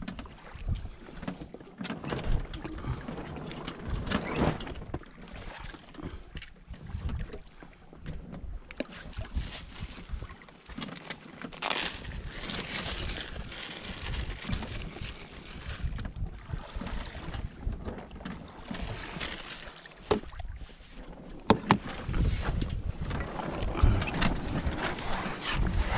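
Water washing along the hull of a San Juan 21 sailboat under way, with wind on the microphone. A few sharp knocks of hands handling things on deck come near the end, as the wash grows louder.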